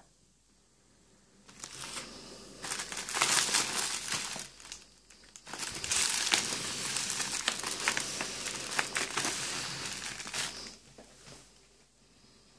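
Crinkling and rustling of a firecracker pack's red wrapping as it is handled and turned over in the hand, in two long stretches with a short break between, stopping a couple of seconds before the end.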